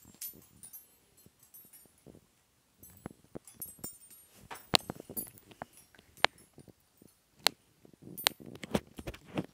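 Scattered light clicks and taps at irregular intervals, with a handful of sharper ones in the second half.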